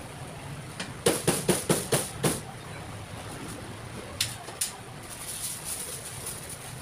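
A cleaver chopping roast chicken on a cutting board: six quick, sharp chops about a second in, then two lighter knocks a couple of seconds later, over a steady background of stall and street noise.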